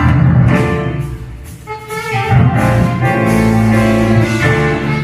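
Live band playing an instrumental passage on electric keyboard and bass guitar, with sustained chords and melody notes. The level dips briefly about a second and a half in.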